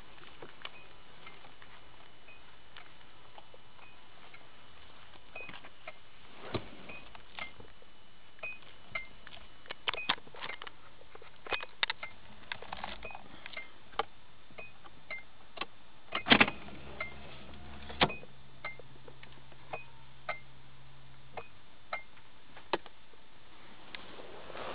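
A 1992 Nissan Maxima's warning chime beeps steadily about twice a second, with the engine off and the ignition on. Scattered clicks and knocks run through it, and about two-thirds through a short electric motor hum starts up and runs for a few seconds.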